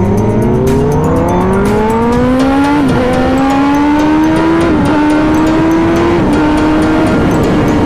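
Kawasaki sport bike engine under hard acceleration, its pitch climbing steadily through the gears, with quick upshifts about three seconds in, near five seconds and near six seconds, then holding high.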